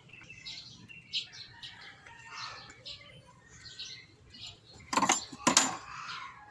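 Small birds chirping on and off, with two short, loud clattering noises about five seconds in.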